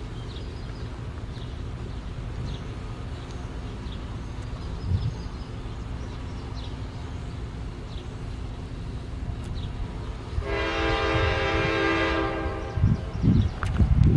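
Diesel freight locomotive approaching with a low steady rumble, then sounding its multi-tone air horn in one long blast of about two and a half seconds, some ten seconds in.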